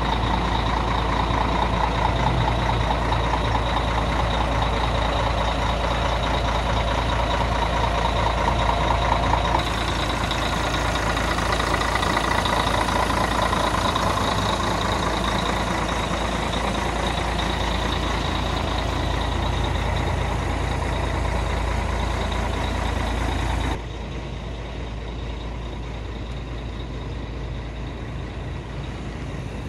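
Mercedes-Benz bus running, with steady engine and road noise. The sound changes abruptly about ten seconds in, and again about 24 seconds in, where it becomes quieter.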